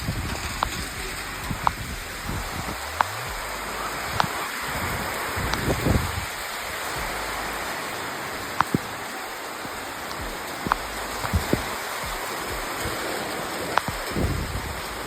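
Steady rain falling, with irregular sharp ticks of single drops striking close by. A few brief low rumbles come and go, about six seconds in and near the end.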